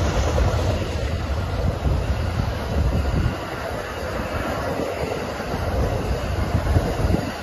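Amtrak Superliner bilevel passenger cars rolling past on steel rails: a steady rumble of wheels on track that drops a little about three seconds in, as the last cars go by.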